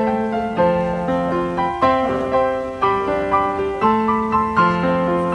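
Background piano music: notes and chords struck about twice a second, each ringing on until the next.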